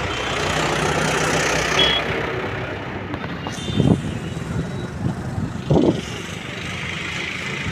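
Motor vehicle traffic: an engine runs steadily close by, with a rush of passing noise in the first two seconds. Two brief high beeps come early, and two short thuds about two seconds apart fall near the middle.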